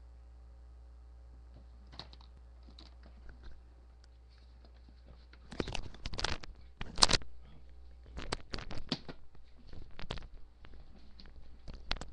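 A steady low electrical hum, then from about halfway in a run of scattered knocks, bumps and rustles close to the microphone as people scuffle and move about. The loudest are a few sharp knocks around six to seven seconds in.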